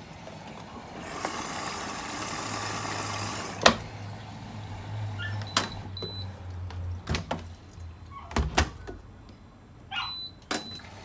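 Whirlpool AWF74140 front-loading washing machine being tried out after a door-lock replacement: a hiss for a couple of seconds, a low hum, several sharp clicks and two short high beeps.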